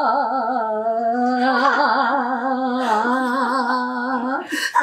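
A woman singing unaccompanied in Taiwanese opera (gezaixi) style, drawing out one long note with a wide vibrato. A short burst of noise cuts in near the end.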